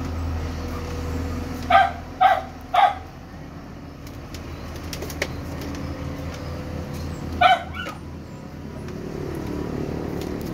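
A dog barking: three short barks in quick succession about two seconds in, then a single bark about seven and a half seconds in, over a steady low hum.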